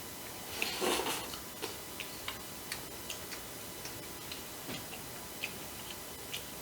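Eating sounds: scattered small, irregular clicks as crisp deep-fried food is chewed, with one louder, longer crunch about a second in.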